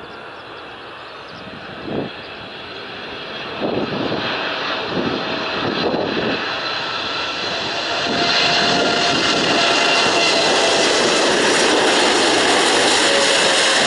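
Boeing 747-8 freighter on landing approach, its four GE GEnx-2B turbofans growing louder as it closes in. The jet noise carries steady whining fan tones, swells from about four seconds in, and is loudest and steady from about eight seconds in as the aircraft passes close overhead.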